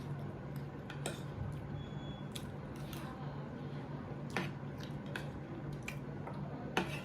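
Close-up eating sounds: wet chewing with a handful of sharp clicks of cutlery against dishes, over a steady low hum.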